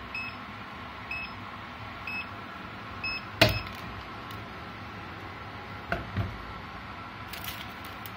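Mug heat press controller beeping four times, about once a second, as its timer counts down to zero at the end of the pressing cycle. Then a loud clunk as the press's clamp lever is thrown open, followed by two smaller knocks and a light rustle as the paper-wrapped mug is handled.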